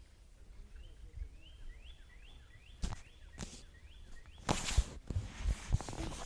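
A quick run of about eight short chirps, each rising then holding briefly, from a small bird or frog. Partway through come two sharp knocks, then a loud rustle and irregular steps near the end.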